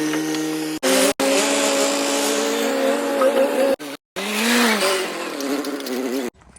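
A pitched engine note, steady and then rising and falling near the end, cut off abruptly to silence several times as if edited together.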